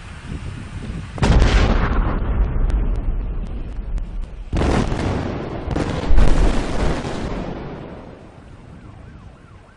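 Explosion blasts: a sudden blast about a second in and another a few seconds later, each rumbling away slowly over a few seconds.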